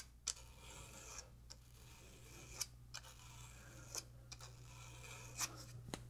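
Edge of a flat flex cable drawn across 400-grit sandpaper: faint short scratching strokes, about nine in all, coming in pairs about every second and a half, smoothing a lip off the cable's edge.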